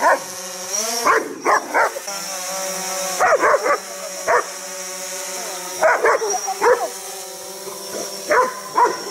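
German Shepherd barking in quick bunches of two or three at a hovering quadcopter drone, over the drone's steady propeller whine, whose pitch shifts as it manoeuvres.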